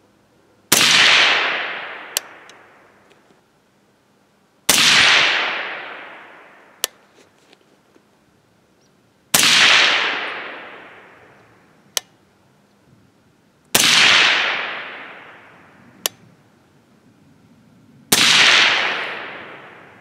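Five shots from a suppressed AR rifle in 300 Blackout firing 125-grain SST handloads, about four to five seconds apart, each with a long echo dying away over about two seconds. A single sharp tick follows each of the first four shots about a second and a half later.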